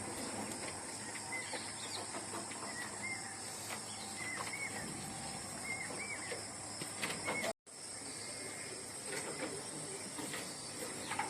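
Outdoor farm ambience: a steady high hiss of insects under a small bird chirping again and again in short calls. The sound drops out abruptly for a moment partway through.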